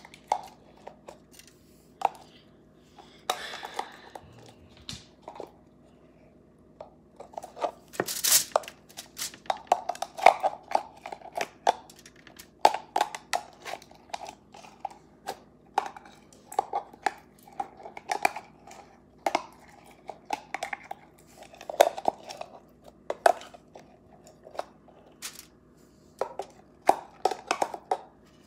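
Slime being squished and pulled apart by hand on a foil-lined tray: a long irregular run of small sticky clicks and pops, with a sharper crackle about eight seconds in.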